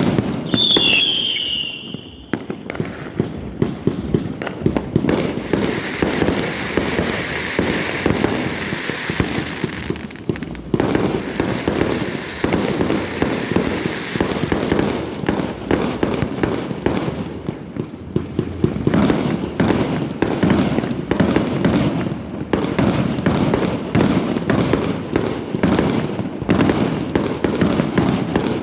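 Many fireworks and firecrackers going off at once: a continuous dense crackle of pops and bangs. A short wavering whistle from a whistling firework sounds near the start.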